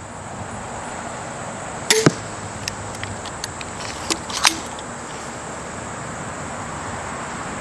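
An 80 lb pistol crossbow fires a bolt once about two seconds in with a single sharp snap, followed by a few fainter clicks a couple of seconds later.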